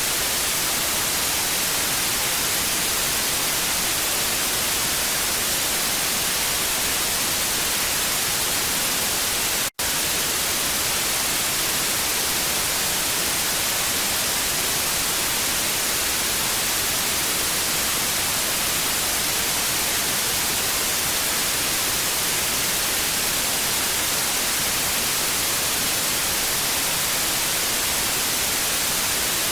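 Steady TV static hiss, brightest in the treble, with a split-second dropout about ten seconds in.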